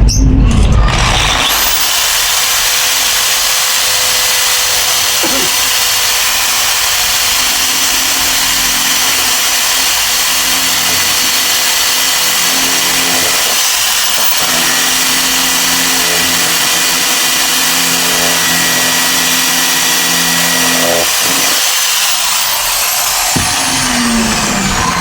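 A power tool running steadily with an even, high hiss.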